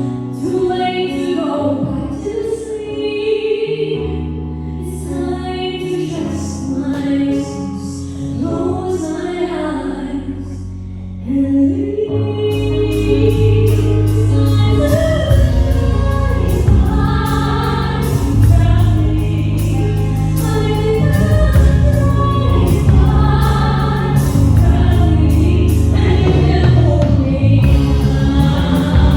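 A singer performs a show tune live with a backing band. The voice is over sustained chords at first, and the full band comes in louder about twelve seconds in.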